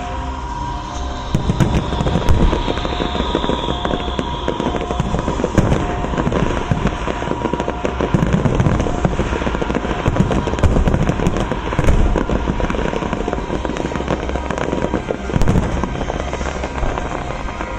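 Aerial fireworks bursting in quick, irregular succession, with crackling between the louder bangs. Music plays underneath.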